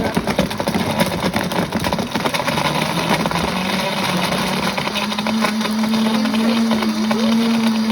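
Princess House Vida Sana blender running on its soup setting, crushing whole chocolate tablets, a cinnamon stick and sugar in milk. A dense clatter of the chunks being broken up fills the first couple of seconds, while the motor's hum rises in pitch and then holds steady.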